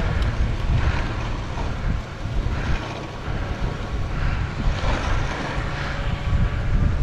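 Wind buffeting the microphone of a camera on a moving dog sled, a steady rough rumble, with the hiss of the sled runners over snow swelling and fading about once a second.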